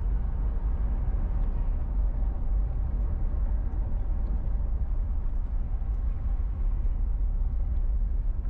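Steady low rumble of a car driving at city speed: engine and tyre noise with no sudden events.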